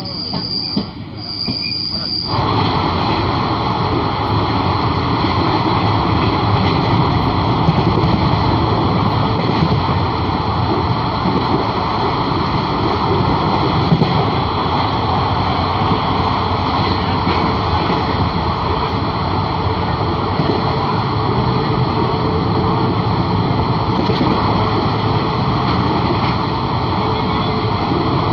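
Express passenger train running along the track, heard from an open coach door: a loud, steady rolling rush of wheels on rails with a few steady high-pitched tones riding over it. It comes in abruptly about two seconds in, after a quieter stretch with a single high steady tone.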